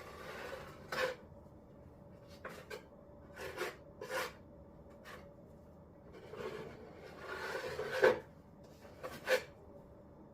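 Irregular scraping strokes of a spreading tool working Henry Feather Finish cement into a thin skim coat, some drawn-out and some short and sharp, the loudest about eight seconds in.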